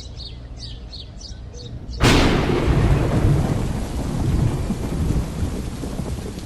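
Several short faint hisses, then about two seconds in a sudden loud clap of thunder that keeps rumbling under steady heavy rain.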